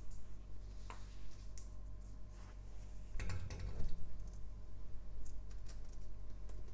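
Scattered small clicks and light knocks from a small lamp being handled and changed, with a denser cluster of knocks and a low thump about three seconds in, over a steady low hum.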